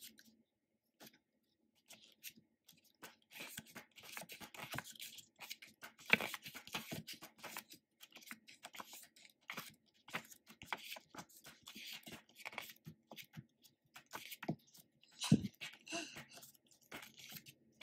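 The pages of a glossy album photo book being turned and flicked by hand: a string of short papery rustles and flaps, with a couple of louder flaps, one about six seconds in and one about fifteen seconds in.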